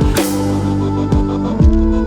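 Electronic background music with a bass beat and falling synth sweeps.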